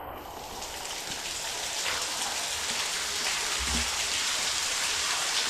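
Water falling and splashing in a cave, an underground waterfall or heavy spray: a steady rushing hiss that grows gradually louder.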